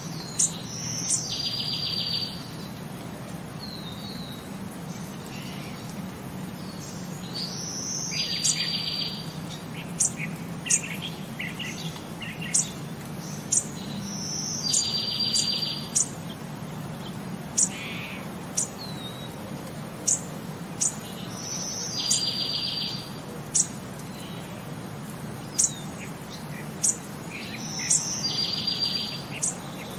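Bird chirps and a short buzzy trill repeating in a loop about every seven seconds, over a low steady hum.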